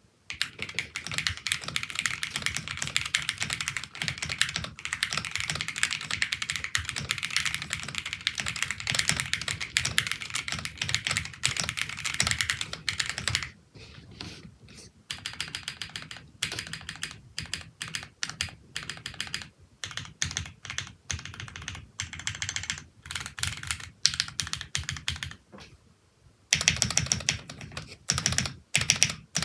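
Typing on an Akko ACR Pro 75 acrylic mechanical keyboard with JWK nylon black linear switches and dye-sub PBT keycaps. Fast, continuous typing for roughly the first half, then shorter bursts and single key presses, a brief pause near the end, then typing again.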